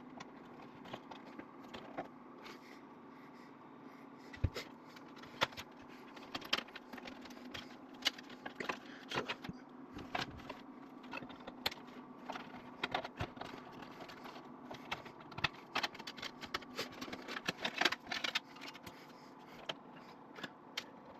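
Irregular small clicks and light rattles of computer parts being handled and connectors fitted while a desktop PC is reassembled, over a steady low hum.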